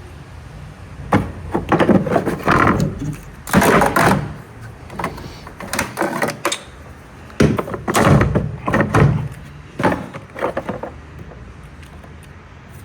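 A series of knocks and rattles, in two bursts of a few seconds each, over a low steady hum.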